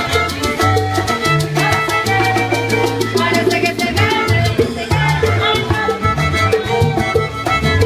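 Cuban salsa music from a small live band: violin and guitar over a steady beat and a bass line.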